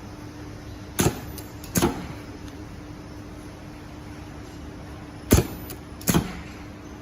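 Ultrasonic spot welding machine for mask ear bands running two weld cycles: each a sharp pneumatic clack as the welding head comes down, then a second clack just under a second later as it lifts, over a steady low hum.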